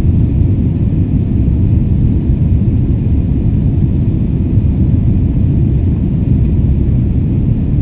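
Jet airliner during takeoff: a loud, steady low rumble of engine and airflow noise.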